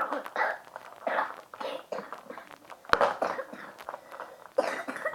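A child coughing again and again in short bursts, with a sharp click about three seconds in.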